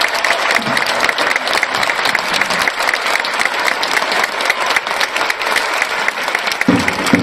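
Large stadium crowd of football supporters applauding, many hands clapping steadily. A low rhythmic beat starts near the end.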